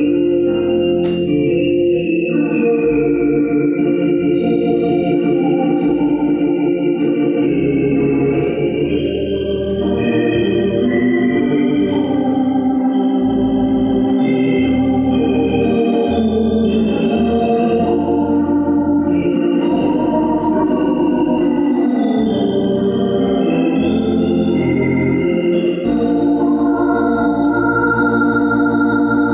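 Hammond organ played through a Leslie speaker: a slow waltz melody over held chords, with pedal bass notes changing underneath.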